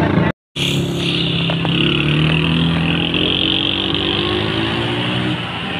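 A motor vehicle's engine running, its pitch rising slowly as it speeds up, over road noise. The sound drops out completely for a moment just after the start.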